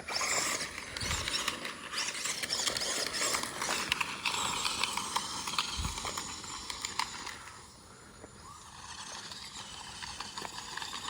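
A 1/16 scale Traxxas Slash RC truck driving over dirt and gravel, a steady crunching and clattering of tyres and plastic parts, with a couple of low thumps. It goes quieter for a moment past the middle, then picks up again.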